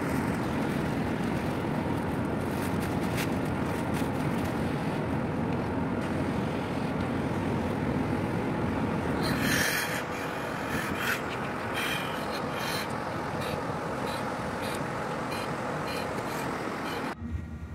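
A steady outdoor rumble on a rig deck, with crinkling and rubbing from a breathing-apparatus set, its plastic wrapping and straps being handled, strongest a little past halfway. The noise drops abruptly to a quieter hum just before the end.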